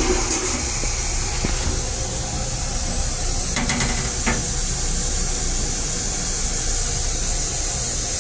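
Steady hissing rumble inside an M3 railcar's stainless-steel restroom, with two light knocks about three and a half and four and a half seconds in as the plastic toilet seat is lowered and handled.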